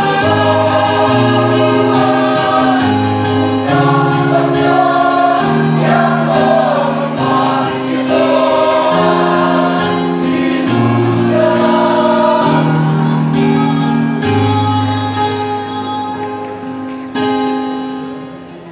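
A choir singing in harmony, holding long chords over a moving bass line, the sound dying away over the last few seconds.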